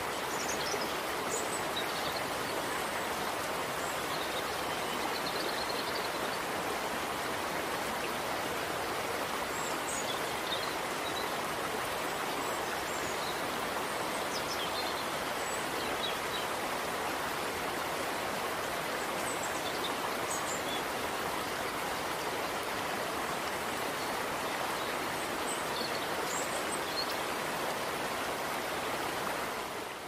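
Waterfall: a steady rush of falling water, with short high bird chirps scattered throughout.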